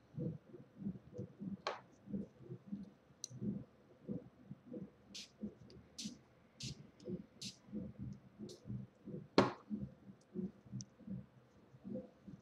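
Hands rubbing and working a client's hand and fingers during a manicure: soft rhythmic rubbing and handling thumps, about three a second, with a scattering of sharp clicks, one louder click about nine seconds in.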